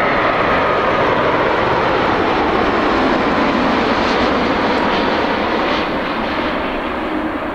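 Boeing 787-8's Rolls-Royce Trent 1000 turbofans on final approach, passing close by: loud, steady jet noise with a faint whine, easing slightly near the end as the airliner moves away.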